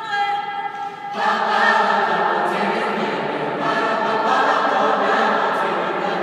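Mixed-voice high school choir singing a cappella. The first second is thinner and softer, then the full choir comes in loudly and holds on.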